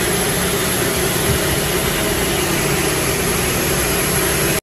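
Steady jet aircraft noise: a constant rush with a low hum and a thin high whine over it.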